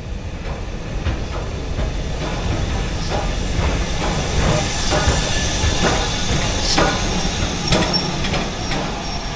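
LMS Black 5 steam locomotive No. 5025 rolling past into a station platform: a low rumble with a hiss of steam and a string of sharp metallic clanks and knocks, which come thicker and louder from about three seconds in as the engine draws level, then ease near the end as the carriages follow.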